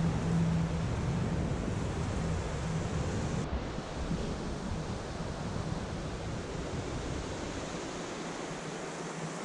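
Whitewater rapids of the Molalla River rushing steadily, an even wash of water noise.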